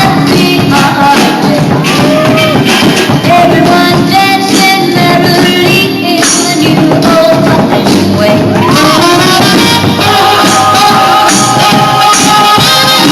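A band playing a song with a singer, loud and steady.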